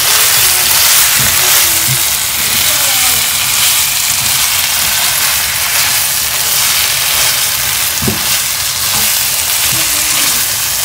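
Chopped beef lung and onions with tomato paste sizzling steadily as they fry in oil in a pan, stirred now and then with a few short knocks.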